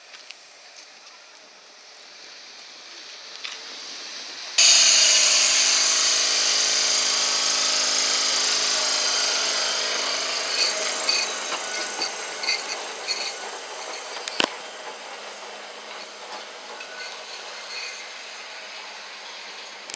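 Blackpool Balloon double-deck tram passing close by: its steady motor whine and wheel-on-rail noise start suddenly and loudly about four and a half seconds in, then slowly fade, with scattered clicks from the wheels later on.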